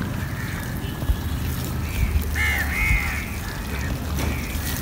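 Crows cawing a few times, mostly about two to three seconds in, over a steady low rumble.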